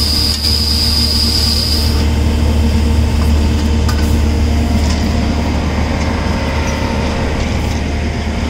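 Heavy engine running steadily with a low drone, from the welding plant's power unit. A high steady hiss stops about two seconds in.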